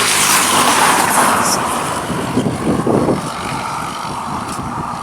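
A car passing at speed on the highway, its tyre and engine noise loudest in the first second or so and then fading, with a rougher low rumble a little later that may be wind on the microphone.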